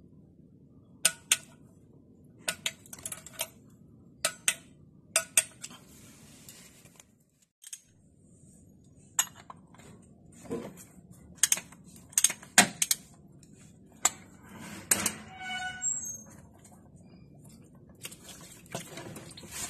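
Sharp metal clicks and clinks of hand tools under a car, coming singly or in pairs every second or so: a torque wrench on the oil-pan drain plug, then a ratchet with a cap wrench turning the oil filter, one clink near the end ringing on briefly.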